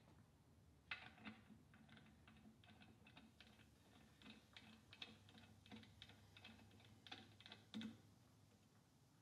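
Faint, irregular light clicks and ticks, several a second, from hands working small parts of a degree wheel and pointer set up on a Honda UT3 engine. A louder click comes about a second in and another near the end.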